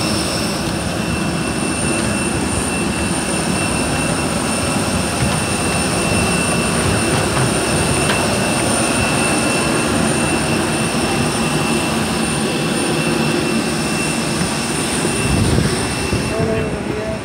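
Loud, steady turbine noise from a parked jet airliner on the ramp: a broad roar with several steady high-pitched whine tones over it. Near the end the high whine fades and the noise turns duller.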